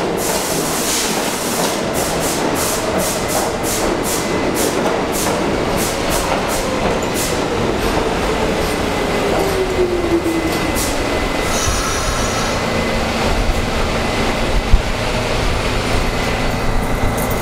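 R46 subway train pulling into the station and slowing to a stop. Its wheels clack over the rail joints for the first seven seconds or so while a whine glides down in pitch, and a thin steady high tone carries on once it has stopped.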